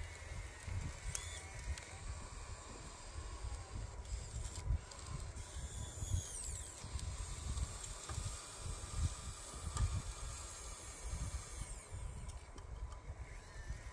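Small electric motors of a converted Bruder RC excavator whining faintly, rising and falling in pitch, with a few light clicks, over a constant uneven rumble of wind on the microphone.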